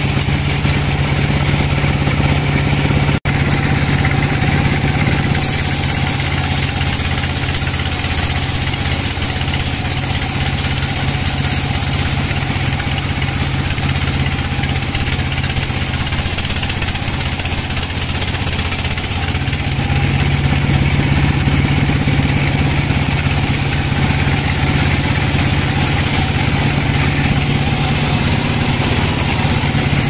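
Band sawmill running steadily, its motor humming under the hiss of the band blade cutting through a log, with a momentary drop-out about three seconds in.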